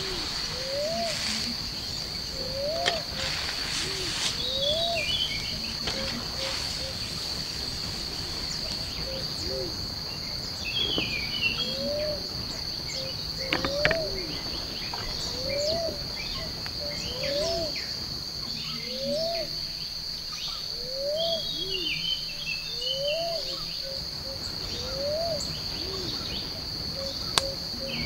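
Forest ambience: a steady high-pitched insect drone, with a low rising call repeated about once a second, bird twittering now and then, and a few sharp clicks.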